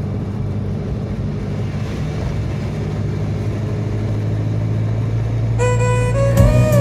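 Steady low hum with a rushing haze. About five and a half seconds in, music with clear plucked guitar notes comes in over it.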